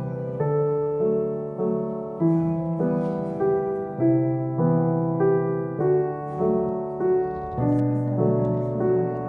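Background piano music: a gentle repeating pattern of notes at a steady pace.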